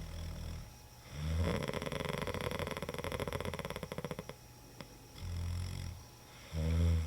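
A man snoring heavily, with a rattling flutter in his breathing. There is a short snore, then a long rattling one lasting about three seconds, then two shorter snores near the end.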